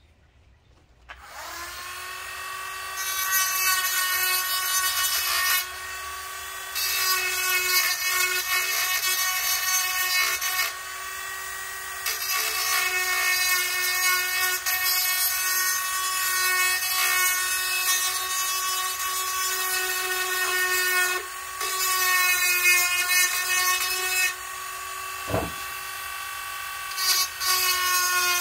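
Cordless Bosch rotary tool with a small mill bit, starting about a second in and running with a steady high whine. In repeated spells the bit bites into the bicycle cog with a harsh grinding rasp, dropping back to the plain whine between passes, as the nubs inside the cog are ground down to open it to fit a Red Band Bendix coaster brake.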